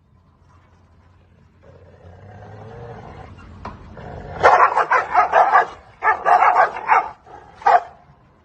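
A dog growling low, then barking angrily in two rapid volleys and once more near the end.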